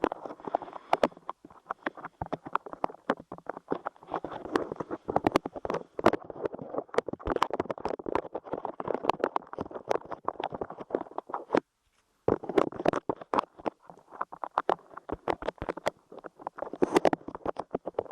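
Soft light clay being squished, pressed and pulled against a microphone close up, making dense sticky crackles and pops that stop briefly twice.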